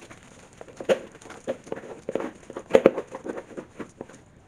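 A wooden spoon and a hand mixing a crumbly flour-and-water dough in a plastic bowl, with irregular scraping and knocking against the bowl.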